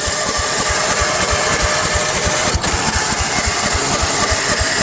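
Tecumseh small engine on a walk-behind zero-turn mower running at a steady idle, its firing strokes an even low thumping several times a second. The owner finds fuel pouring straight through the carburetor and flooding the engine.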